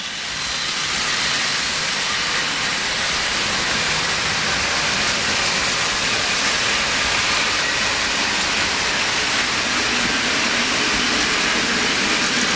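Several Märklin HO model trains running together on three-rail track: a steady whirring, rolling noise of small motors and wheels on the rails. It fades in at the start, then holds even.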